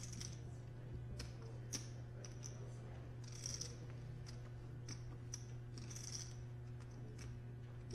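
Poker chips clicking and clattering as they are handled at the table, with two short rattling riffles, over a steady low hum.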